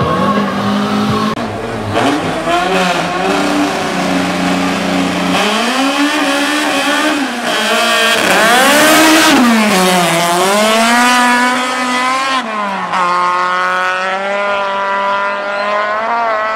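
Race car engines revving at the line and then accelerating hard down a drag strip. The pitch climbs and falls back sharply at the gear changes, about three times, before settling.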